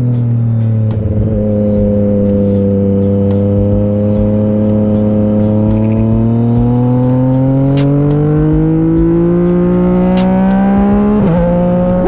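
Motorcycle engine running under way, heard from the rider's helmet: steady at first, then its pitch climbs slowly as the bike accelerates, with a brief break near the end.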